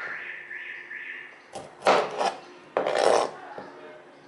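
Kitchen knife cutting through small lemons and hitting a plastic cutting board: two cuts, about two seconds in and again a second later.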